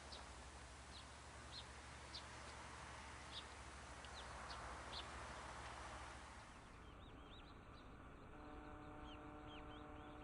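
Faint outdoor morning birdsong: scattered short, high chirps of small birds over a quiet background hiss. A faint steady hum of several tones comes in about two seconds before the end.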